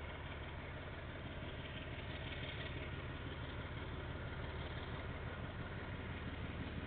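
Diesel locomotive engine running steadily with a low rumble, growing slightly louder near the end.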